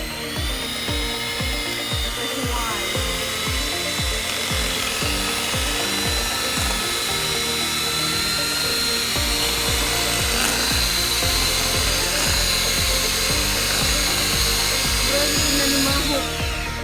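Electric mixer whirring steadily as it beats cream in a bowl: it spins up right at the start and winds down near the end. Background music with a steady beat plays throughout.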